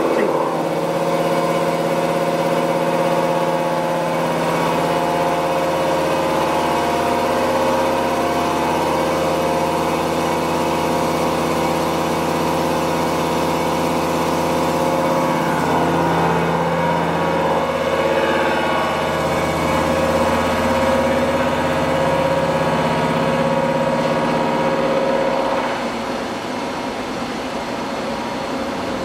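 Macro Micro horizontal CNC machining center milling a metal workpiece: a steady mechanical hum of many tones from the spindle and cutter, wavering in pitch midway, then dropping in level a few seconds before the end.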